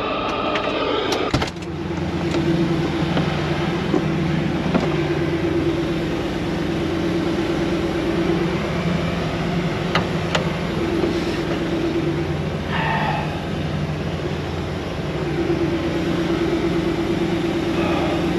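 Semi-truck diesel engine idling with a steady low hum, with a sharp clunk, like a cab door, about a second and a half in.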